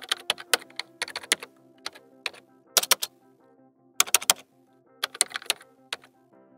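Keyboard typing clicks in short irregular bursts, over soft background music of held notes.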